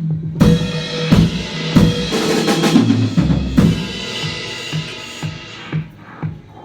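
Loud drum hits with crashing, noisy percussion over a steady low hum. The racket starts about half a second in and dies away near the end.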